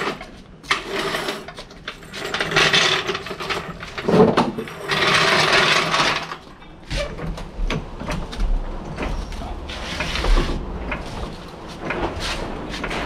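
Corded INGCO electric impact wrench on a car's wheel nuts, hammering in several runs with a fast mechanical rattle, the loudest stretch a few seconds in.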